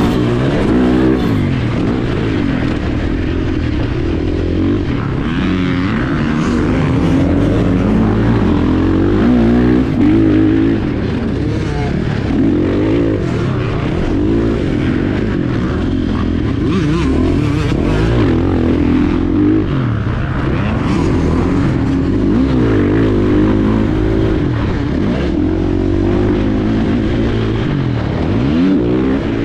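KTM 450 SX-F's single-cylinder four-stroke engine heard from on the bike, revving up and dropping back over and over as it accelerates, shifts and slows around a motocross track.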